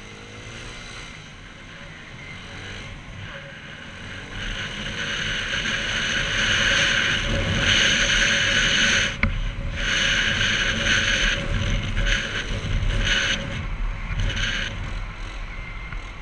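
Motor scooter being ridden in traffic, heard from the rider's helmet camera: engine and road noise building up over the first several seconds as it gathers speed, then coming in louder surges through the second half. A single sharp click about nine seconds in.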